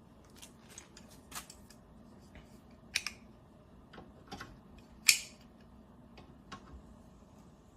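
Scattered light clicks and knocks of metal parts and tools being handled while a coilover assembly is clamped, with a sharper knock about five seconds in.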